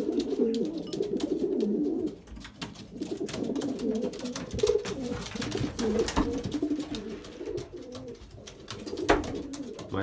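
Several racing pigeons cooing together in a small wooden loft: a continuous low, overlapping cooing. Wings flap now and then among scattered clicks, with a sharp knock about nine seconds in.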